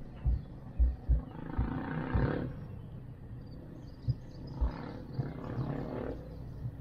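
Wind buffeting the microphone during a cable car ride: irregular low thumps and two longer rushing gusts over a steady hiss.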